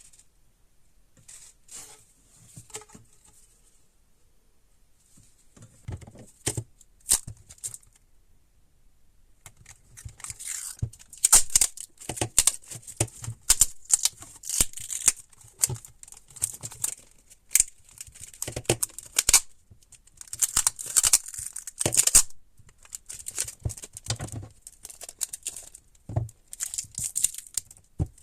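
Irregular tearing and scraping strokes with crinkling and sharp clicks from hands-on work on small parts. They are sparse at first and come thick and fast from about a third of the way in.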